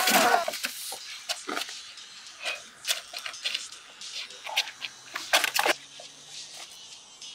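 A short wavering cry at the very start, then scattered knocks, sharp clicks and rustling, loudest about five and a half seconds in.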